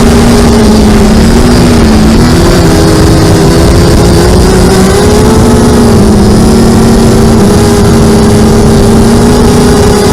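Electric motors and propellers of an FPV aircraft running steadily, a loud buzzing drone whose pitch drifts slightly up and down with throttle, over rushing wind noise.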